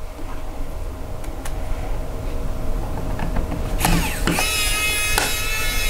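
Small electric screwdriver motor whining as it drives a screw into the radio's sheet-metal top cover, starting about four seconds in, its pitch sagging slightly as the screw runs down. Before it, a few light clicks of handling.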